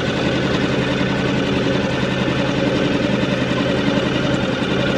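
Outboard motor of a small aluminium tinny running steadily under way, with a wash of water and wind noise over the engine note.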